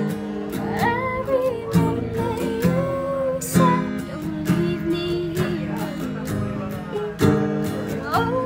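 Acoustic guitar strummed in a steady rhythm, with a woman singing a slow melody over it.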